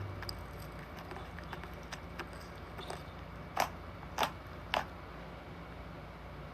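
Slime being squished and played with by hand, with faint crackling clicks throughout and three louder sharp pops a little over halfway through.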